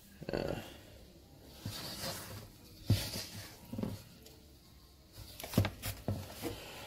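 A rubber spatula stirring flour and water into a shaggy dough in a stainless steel mixing bowl: soft scraping with a few sharp clicks against the bowl, twice near the middle and again near the end.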